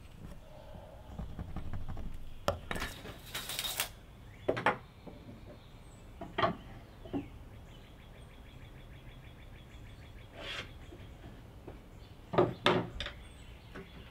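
Hand tools and a board being handled on a wooden workbench: a scratchy rustle about two and a half seconds in, then scattered sharp knocks and clicks, with a cluster of them near the end. Faint birdsong sits behind.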